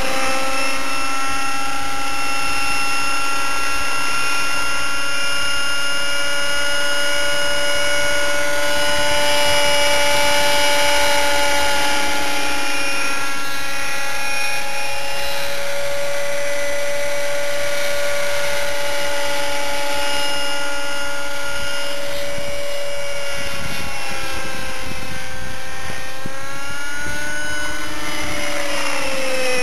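T-Rex 600 Nitro Pro RC helicopter in flight, its OS 50 Hyper nitro engine with a Hatori performance muffler running at steady high revs together with the rotors. Near the end the pitch dips and swings as it comes in close and low.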